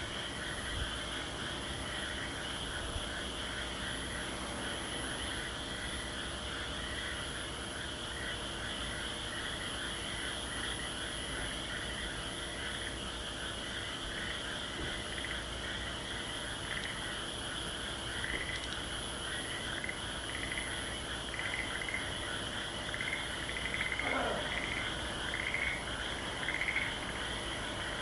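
A chorus of many frogs calling together in a dense, continuous croaking. In the second half, individual croaks stand out louder in a steady rhythm.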